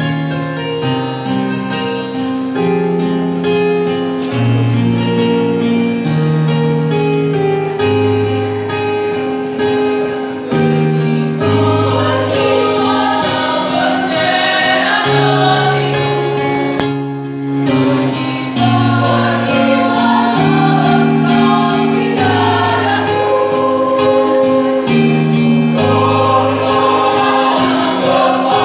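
A choir singing with keyboard accompaniment, held chords moving in steps. The sound grows fuller about eleven seconds in, with a brief break a little past halfway.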